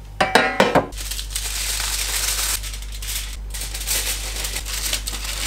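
Aluminium foil crinkling as it is pulled out and pressed over a baking tray, a dense continuous crackle, after a short rattling clatter near the start.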